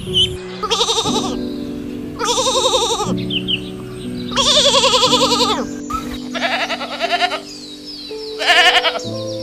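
Sheep bleating about five times, each bleat wavering, the middle one the longest, over background music with long held notes.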